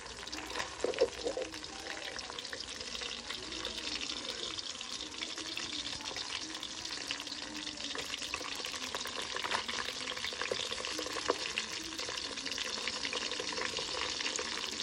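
Masala-marinated fish sizzling and crackling steadily in hot oil in a metal kadhai, with a few sharp clinks as the slotted steel spoon touches the pan.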